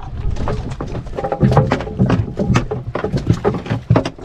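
Rapid, irregular knocking and thumping, many hits in quick succession, with a few faint steady tones about a second in.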